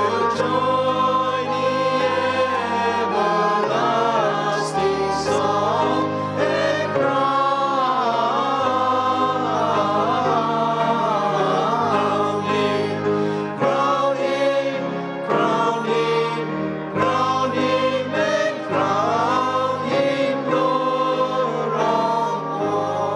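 A small group of worship singers sings a hymn's closing refrain in harmony over instrumental accompaniment with held bass notes. The music starts to fade near the end.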